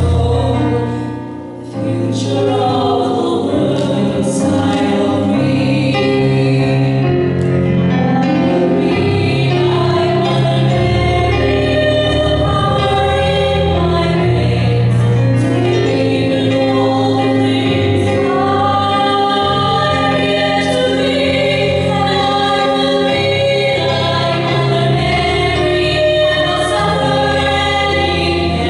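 Young voices singing a song together in harmony on stage, with long held notes and steady low notes sounding underneath.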